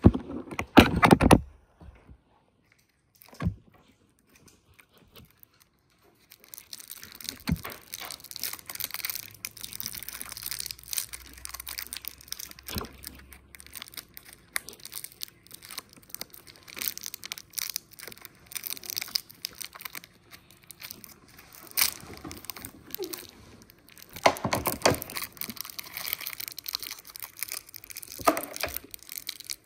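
Plastic and foil sweet wrappers crinkling and tearing as candy bars are unwrapped by hand, a dense continuous crackle starting about six seconds in. It follows a short, loud sound near the start.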